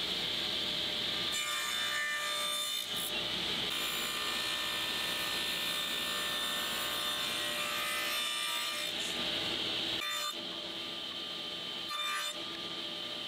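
Table saw running while its blade cuts a groove along a wooden strip, with two long passes of wood cutting over the steady run of the saw. About ten seconds in the cutting stops and the saw runs on more quietly, with a few brief brushing sounds.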